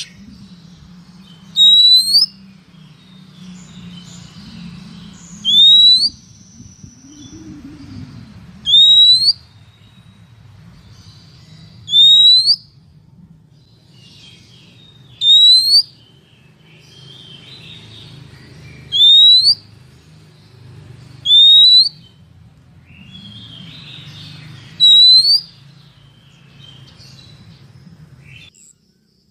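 Female oriental magpie-robin calling: a short upswept whistle repeated eight times, about every three seconds, over a low steady hum. It is the female call used to excite male magpie-robins.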